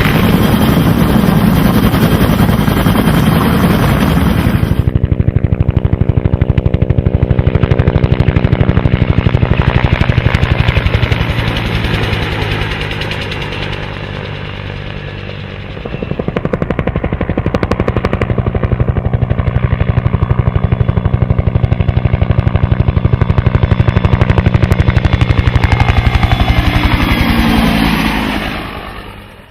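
Helicopter in flight: a steady engine drone under a rapid, even rotor chop. It dips for a few seconds midway and fades out near the end.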